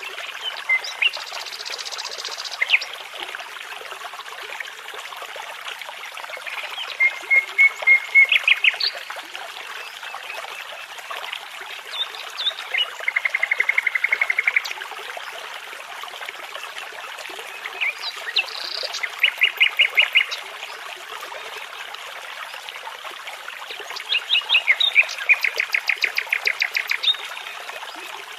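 Nightingale singing in separate phrases about every five or six seconds, each a fast run of repeated notes, over the steady rush of a babbling brook.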